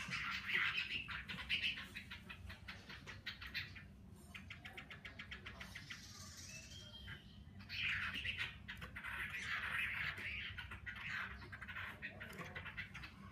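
Caged Chinese hwamei singing in loud, varied phrases. About three seconds in comes a fast run of repeated notes, then a quieter pause. A long burst of song starts at about eight seconds.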